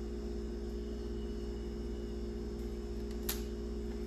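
A steady low hum of several even tones, with one short click about three seconds in.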